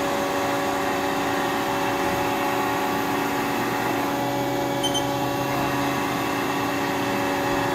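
Haas SL-30T CNC turning center humming steadily while its Z-axis is jogged. A lower drone from the axis drive comes in about three and a half seconds in and stops near six seconds. Two quick high beeps sound around five seconds in.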